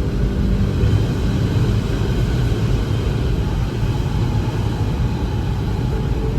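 A steady low rumble with an even rushing noise over it, holding a constant level throughout.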